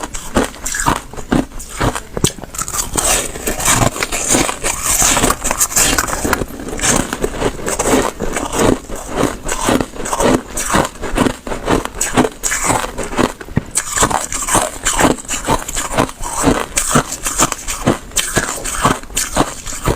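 Close-miked crunching of soft slushy ice being bitten and chewed, a rapid run of crisp crunches several times a second.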